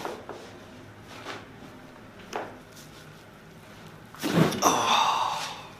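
Chiropractic adjustment: a few faint clicks, then about four seconds in a sudden loud burst lasting over a second as the thrust goes in, with a wavering pitched sound over it.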